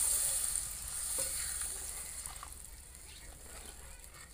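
Water poured into a hot steel kadhai of frying onion-tomato masala, hissing and sizzling as it hits, then fading away over a few seconds, with a few scrapes of the steel spatula stirring the pan.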